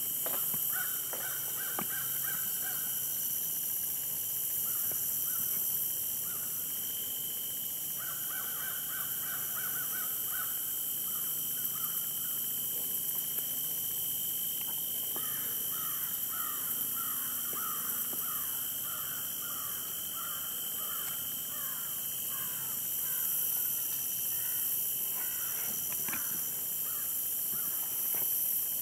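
Birds calling in repeated runs of short harsh notes, likely crows cawing, over a steady high-pitched drone of insects. A few sharp knocks come near the end.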